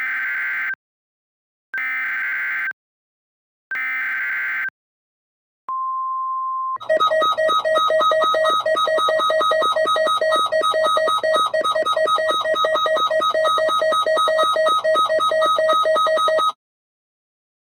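Three bursts of EAS SAME header data, each about a second long with about a second between them, followed by a one-second steady 1050 Hz NOAA Weather Radio alert tone. Then about ten seconds of a loud, rapidly pulsing steady-pitched sound with many overtones, which cuts off suddenly.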